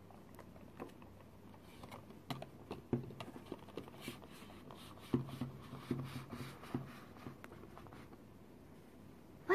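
Faint clicks, taps and light rustling of hands handling small plastic toy figures and a small cardboard box on a tabletop, coming in irregular clusters.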